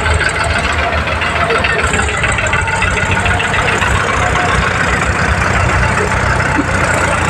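Farm tractor's diesel engine idling steadily, with a low, even engine note and no changes in speed.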